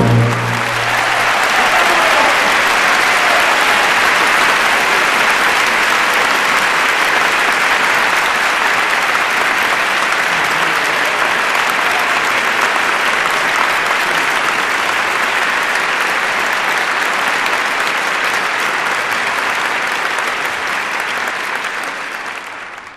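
Audience applauding in a theatre, steady dense clapping that fades away near the end. The orchestra's last loud chord dies out in the first second.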